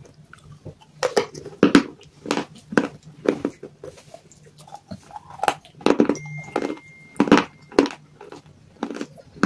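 Baked clay pieces being bitten and chewed close to the microphone: a quick, uneven series of sharp crunches, about two a second.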